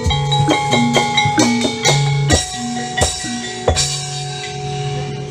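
Background music: an instrumental track with a regular drum beat under held melody notes, thinning out near the end.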